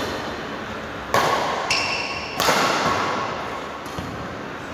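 Badminton rackets striking a shuttlecock in a rally: four or five sharp hits with a light ringing ping from the strings, each echoing in a large hall.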